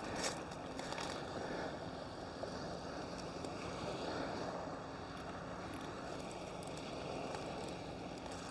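Steady outdoor wind and water noise, with a faint steady low hum underneath.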